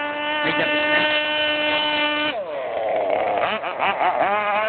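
Radio-controlled racing boat's motor running at a steady high pitch. It winds down a little over two seconds in and revs back up to a steady pitch near the end, with brief voices in the gap.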